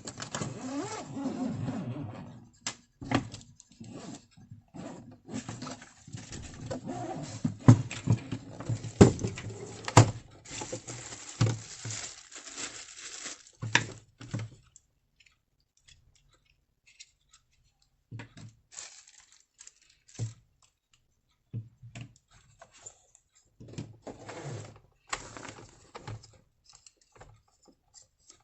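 Handling noise from a hardside suitcase and its papers: rustling, scraping and sharp clicks, busy for about the first half, then only scattered clicks and knocks.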